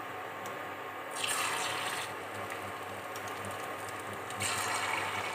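Hot oil sizzling as batter-coated paneer cubes are dropped into a deep-frying kadai, with a swell of sizzling a little over a second in and another at about four and a half seconds, over a steady frying hiss.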